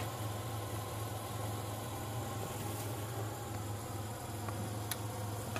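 Steady low mechanical hum, with a couple of faint ticks near the end.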